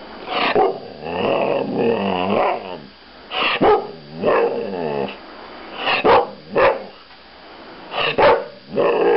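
Thai Ridgeback dog "talking": long warbling calls that waver up and down in pitch, mixed with short sharp barks.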